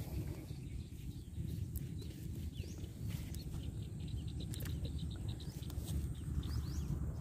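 Wind buffeting the microphone in a steady low rumble, with small birds chirping over it, including a quick run of rapid notes about four seconds in.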